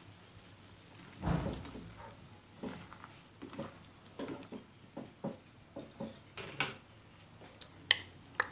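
Slotted nylon spatula stirring and scraping eggs in coconut-milk sauce in a nonstick frying pan: soft irregular strokes, one louder stroke about a second in, and two sharp clicks near the end.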